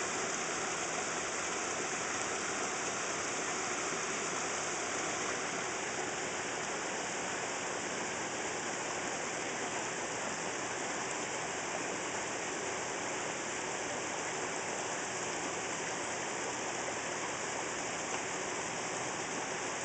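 Steady, even rush of running, splashing water in a koi pond, with no change in level.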